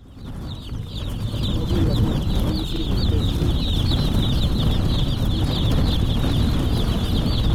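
Outdoor ambience fading in over the first couple of seconds: a steady low rumble of wind on the microphone under a dense, continuous high chirping.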